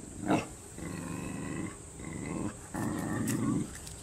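Dog growling in two long, rough rumbles of about a second each, after one short, sharp, loud sound near the start.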